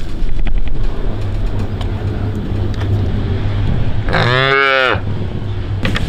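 A young Holstein dairy calf moos once, a single call of just under a second about four seconds in, over a steady low rumble.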